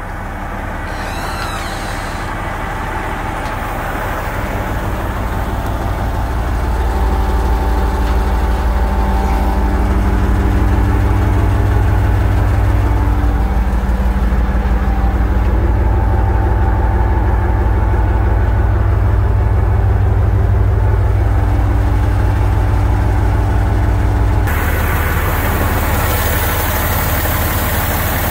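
Mitsubishi MG300 road grader's diesel engine idling steadily, growing louder over the first several seconds. Near the end it sounds brighter, heard from the open engine bay.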